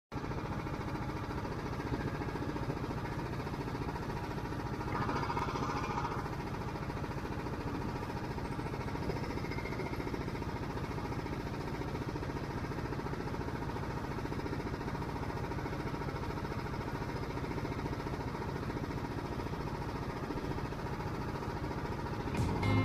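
Kart engines idling on the starting grid, heard faintly and muffled as a steady low hum, with a brief swell about five seconds in.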